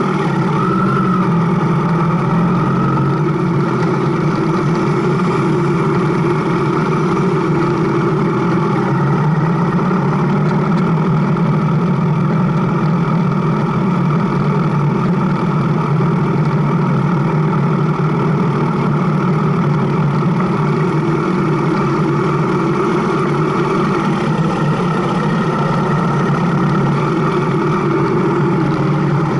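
Motorcycle engine running steadily at an even speed, with no clear revving or stops.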